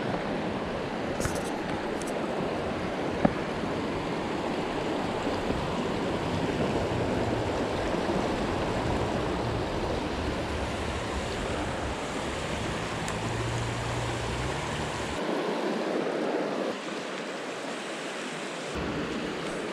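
Fast river current rushing over rocks in shallow rapids: a steady, even rush of water.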